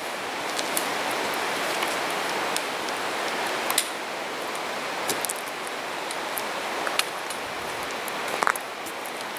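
Steady rushing of a whitewater creek, with scattered sharp crunches of footsteps on a gravel trail.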